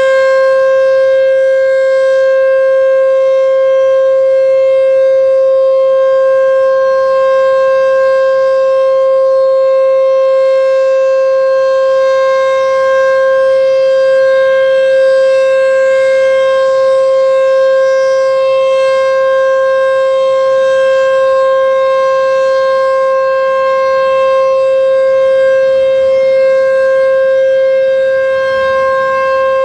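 H.O.R. Super-Sirex 50 HP outdoor warning siren sounding the steady Alert signal: one loud, held pitch with strong overtones that does not rise or fall.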